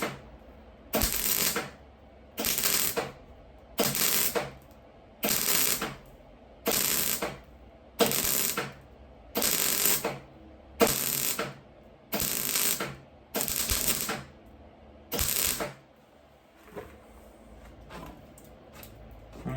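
Welding arc crackling in short, evenly spaced bursts of about a second each, roughly eleven stitch welds, stopping a few seconds before the end, with a few faint clicks after.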